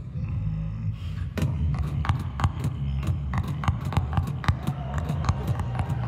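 Beatboxing into a handheld microphone: a continuous low humming bass with sharp percussive clicks over it, the clicks coming in about a second in and then several times a second.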